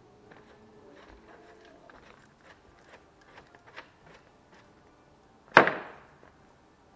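Scattered light taps and clicks, then one loud, sharp bang about five and a half seconds in that rings out briefly: an impact on a hard surface.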